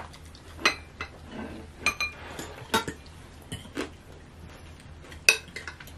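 Metal spoons and forks clinking and scraping against ceramic plates and bowls while people eat, about half a dozen separate clinks.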